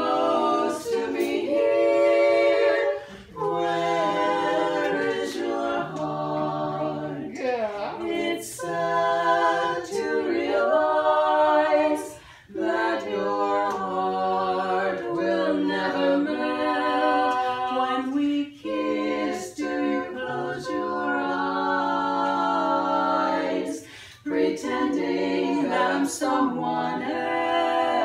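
Women's a cappella quartet singing a slow song in four-part harmony, holding sustained chords, with short breaks between phrases a few times.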